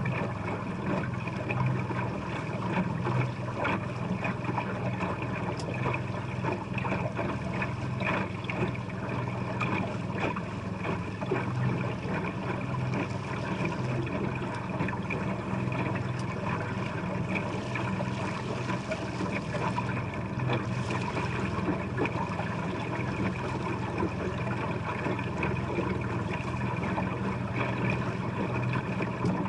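Boat motor running steadily, a constant hum with water noise, no change in pitch.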